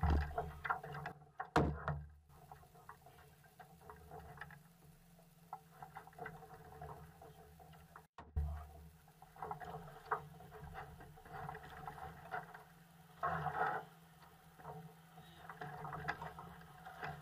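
Quiet handling sounds aboard a small fishing boat: scattered light taps and knocks, with a few louder thumps against the hull.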